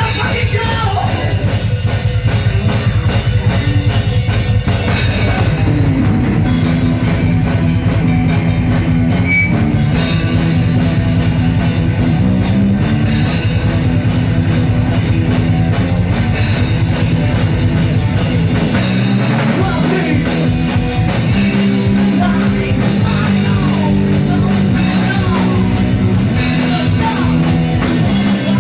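Loud rock band playing: drum kit, bass and guitars, with singing.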